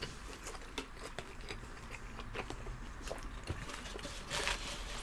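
Close-miked chewing and biting of homemade pan pizza, with scattered small clicks and a louder noisy stretch about four and a half seconds in.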